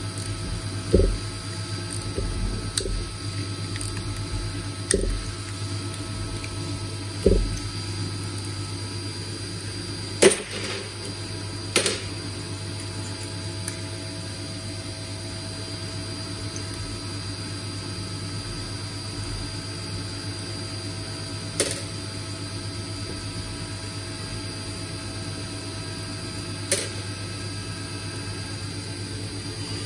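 Hand tools and steel cap screws click and knock as the bolts holding the nose cap of a Haas VF3 spindle are undone and set down on a metal bench. There are a few soft knocks in the first several seconds and sharper single clicks now and then after that, over a steady low hum.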